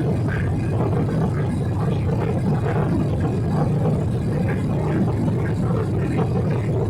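Steady drone of a Boeing 777-300 airliner's engines and airflow heard inside the passenger cabin, a deep, even rumble.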